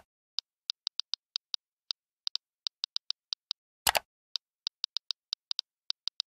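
Tablet touchscreen keyboard click sounds: a sharp tap, then a run of quick, light key clicks as text is typed, another sharp tap about four seconds in, and a second, shorter run of key clicks.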